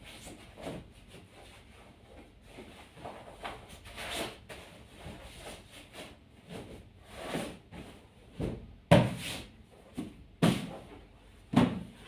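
Fabric rustling as a pillow is worked into a cotton pillowcase, then several soft thumps in the second half as the pillows are patted and plumped into place on the bed.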